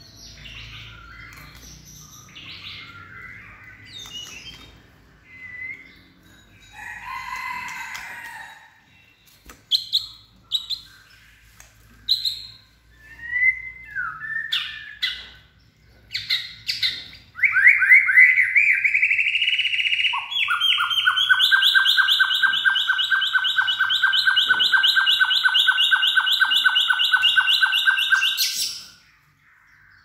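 Male white-rumped shama singing in peak song condition: a string of varied short whistles and chirps, then, a little past halfway, a long, loud, very fast trill of about eight seconds that stops abruptly near the end.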